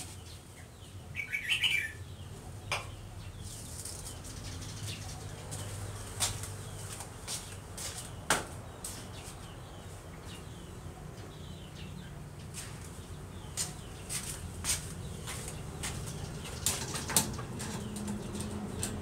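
Scattered light clicks and knocks from brushes being handled against a metal machine, over a faint low hum, with a short high chirp about a second and a half in.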